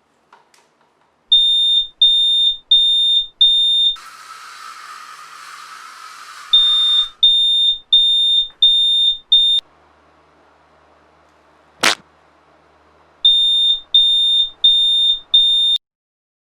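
Smoke alarm beeping in three runs of loud, high-pitched beeps, about three beeps every two seconds, each run cut off abruptly. Between the first two runs there is a steady hiss for about three seconds, and a single sharp knock comes later in a quieter stretch.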